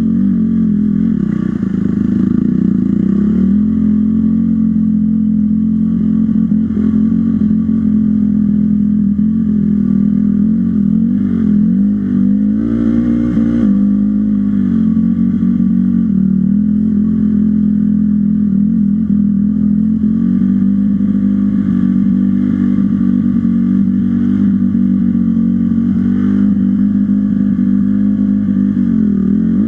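Dirt bike engine running continuously under way on a trail, its pitch rising and falling as the throttle is worked, with a sharp drop and pick-up near the end.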